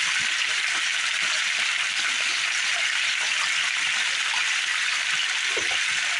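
Sliced potatoes frying in bacon grease in a skillet: a steady sizzle, with a few faint clicks.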